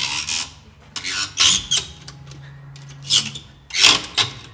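Ratchet tensioner of a heavy-duty truck cargo strap being cranked, giving several short rasping strokes at irregular intervals as the strap is tightened to pull a seized car wheel off its hub.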